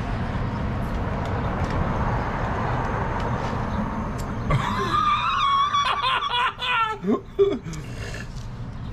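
A steady noisy rumble, then about halfway through, people break into laughter and high-pitched squeals, reacting to the heat of the hot peppers they have just bitten into.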